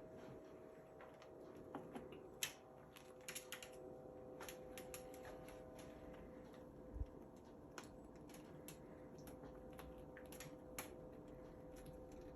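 Faint, scattered light clicks and ticks at irregular intervals, with a single low thump about seven seconds in, over a steady quiet hum.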